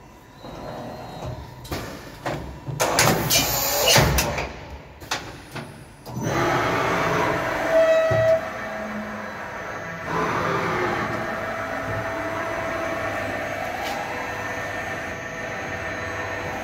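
Takisawa VMC-40 CNC vertical machining centre at work: a run of irregular clanks and rattles for the first few seconds, then a steady mechanical whir with a high whine from about six seconds in, changing pitch about ten seconds in.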